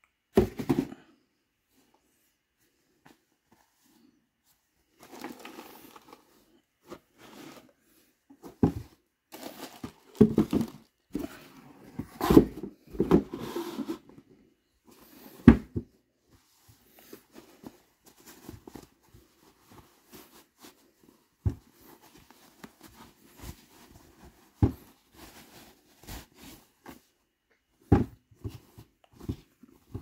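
Hands unpacking a cardboard shoe box: cotton dust bags and paper rustling and shifting, with irregular knocks and thumps against the box, busiest about halfway through.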